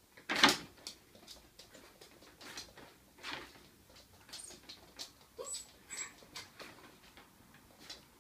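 Small terrier whining and whimpering in short bursts while its claws click and patter on a wooden floor as it circles a plastic laundry basket; the whining comes from wanting the ball it cannot reach inside the basket. A single sharp noise about half a second in is the loudest sound.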